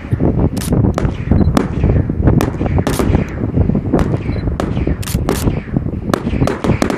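Fireworks display: a rapid, dense string of sharp bangs and crackles from bursting shells over a continuous low rumble of booms.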